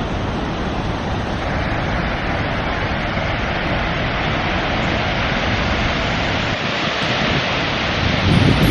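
Skógafoss waterfall rushing: a loud, steady wash of falling water, with wind rumbling on the microphone.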